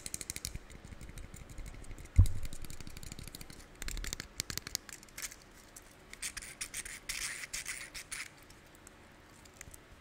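A plastic fidget cube worked close to the microphone: scattered clicks and scratchy rubbing from its buttons and switches. There is one dull thump about two seconds in.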